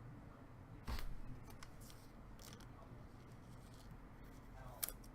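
Trading cards being handled and slid against one another, with a sharp crisp snap about a second in, a few lighter rustles after it, and another snap near the end.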